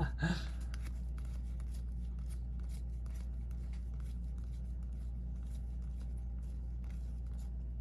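Trading cards being handled and flipped through by hand: faint, scattered ticks and rustles of card stock over a steady low hum.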